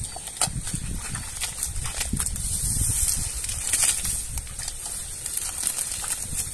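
Wet swamp mud squelching and grass rustling as feet and hands work through it, with scattered small clicks and knocks.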